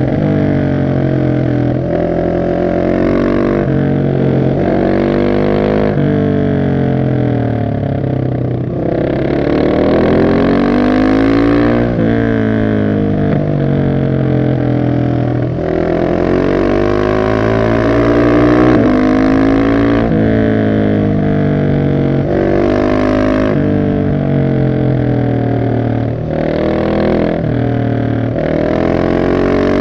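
Single-cylinder engine of a 2021 Husqvarna 701 SM supermoto through a decatted Arrow exhaust, revving up and down over and over as the bike accelerates, shifts and slows, its pitch climbing and then dropping suddenly several times.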